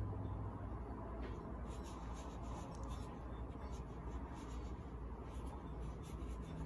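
Faint scratching and rustling of packaging being opened and handled, in irregular strokes over a steady low hum.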